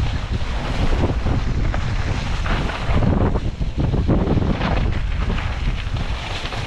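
Wind buffeting the microphone: a loud, gusty rumble that swells and dips unevenly.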